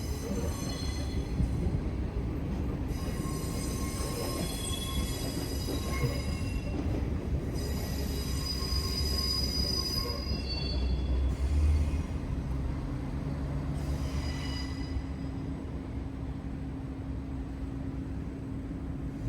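A steady low rumble with high-pitched, ringing metallic squeals that come and go in stretches of a second or more, fading out after about fifteen seconds.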